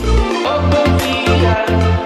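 Background music with a strong, steady bass beat and percussion.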